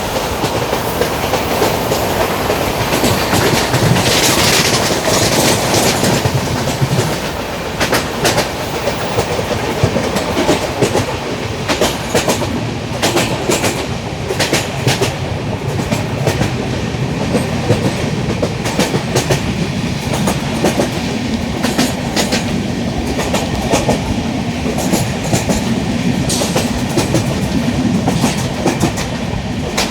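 LHB passenger coaches running along the track: a steady rumble of wheels on rails, broken by irregular clicks as the wheels cross rail joints. A louder hiss rises briefly about four seconds in.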